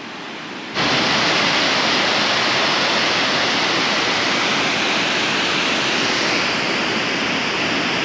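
Loud, steady rush of water pouring down a nearby cascading waterfall, cutting in suddenly about a second in.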